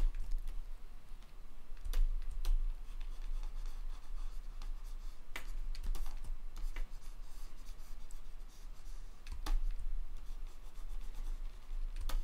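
Scattered clicks and light scratching from a computer mouse and keyboard at a desk, over a steady low hum.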